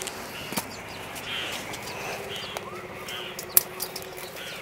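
Faint birds chirping a few times over a quiet outdoor background, and one sharp snip of scissors about three and a half seconds in as a bitter gourd's stem is cut from the vine.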